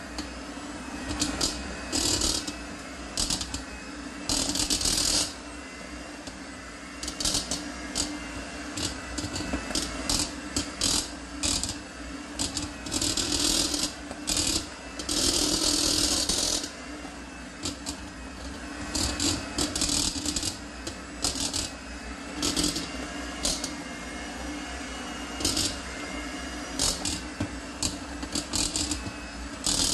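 Kenwood electric hand mixer running steadily as its beaters shred cooked chicken in a stainless steel bowl, with frequent irregular bursts of rattling and scraping as the beaters strike the bowl.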